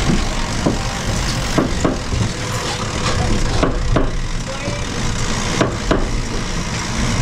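Constant loud rumble and rush of the hull at speed, heard inside the carbon cabin of an IMOCA 60 racing yacht, with irregular knocks and clicks through it.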